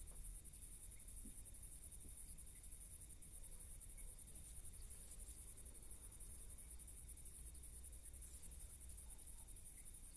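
Faint, steady high-pitched trilling of crickets.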